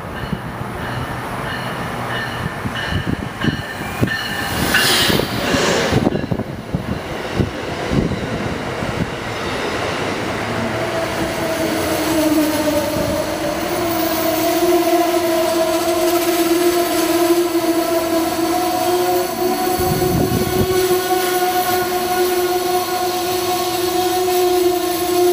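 A passenger train running by on the rails, its wheels clattering in a string of knocks. From about ten seconds in, a steady squeal from the wheels on the rails rises and holds to the end.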